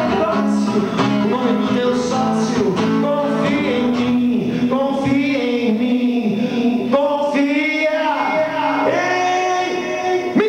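A man singing a rock song into a microphone while strumming an acoustic guitar, played live through the PA, closing on a long held note near the end.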